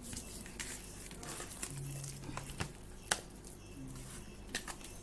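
Hands kneading and rubbing saltpeter into a raw ox tongue in a plastic bowl: soft wet squishing with a few sharp clicks and taps, over a steady low hum.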